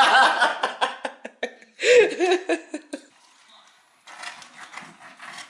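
A short vocal sound about two seconds in, with a few light clicks before it. Then, from about four seconds in, a knife and fork scrape and saw at a steak in a foam takeaway tray, a fainter scratchy sound made of many small strokes.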